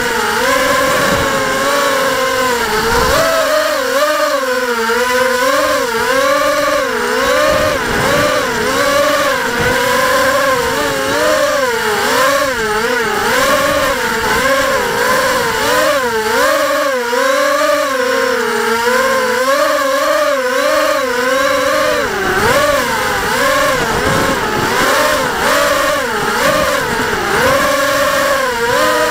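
Quadcopter drone's motors and propellers buzzing, the pitch rising and falling continually with the throttle as it flies.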